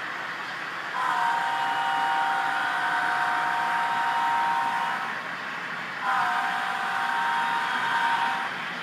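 Multi-chime diesel horn played through an HO scale model locomotive's sound decoder speaker, sounding two long blasts: one of about four seconds starting a second in, then a shorter one about a second after it ends. A steady hiss and running noise lies under it.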